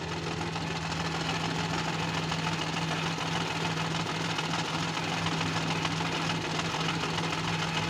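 Maruti Alto 800's three-cylinder petrol engine idling steadily, with an even, unchanging running note.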